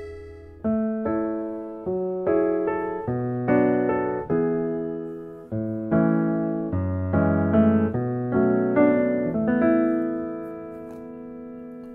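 Background piano music: a slow run of struck notes and chords, each fading after it is played, settling into one long held chord near the end.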